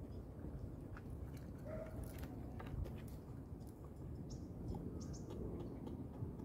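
Low outdoor rumble with a few light footsteps and clicks on a wooden deck in the first few seconds, as a person and a dog walk and stop. Faint short bird chirps come around the middle.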